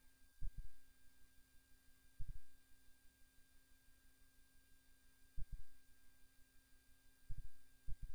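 A steady low hum and a faint high steady tone, broken by five short dull low thumps, most of them in quick pairs, a couple of seconds apart.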